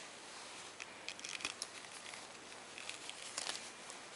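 Faint handling noise of a Casio Baby-G watch being turned over in the fingers: light scattered clicks and rustles of its plastic case and strap, in a cluster about a second in and another about three seconds in.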